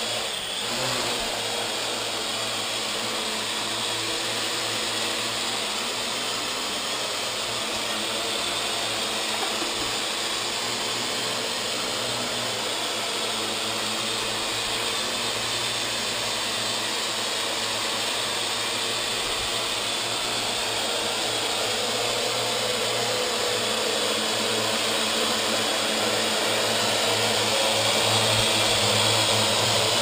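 Parrot AR.Drone quadcopter hovering, its four propellers giving a steady whirring buzz that grows louder over the last ten seconds or so as it comes down close.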